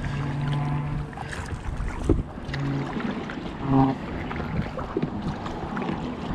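Kayak paddle strokes on calm water, the blades dipping and pulling along the hull of an Oru Haven folding kayak, with scattered small splashes and knocks.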